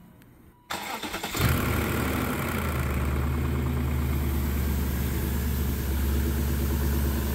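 BMW S62 4.9-litre V8 of a 2000 M5 cranking briefly, catching about a second in and settling into a steady idle. It is the first start on fresh spark plugs and new ignition coils, and it runs smoothly.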